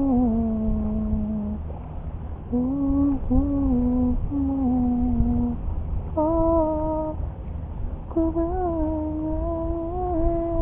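A person humming a slow tune in long, steady held notes, in four phrases with short breaks between them, over a low steady rumble.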